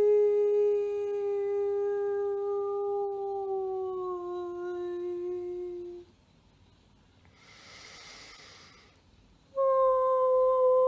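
A woman singing a long, smooth held mantra note that steps down slightly in pitch about four seconds in and ends around six seconds. A breath is drawn, then a new, higher held note begins near the end.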